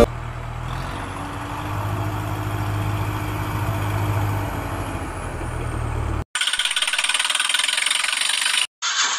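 Engine sound effects dubbed over toy vehicles: a steady low engine idle for about six seconds, then an abrupt cut to a brighter, rattling engine run, and after a brief gap near the end another engine sound starts.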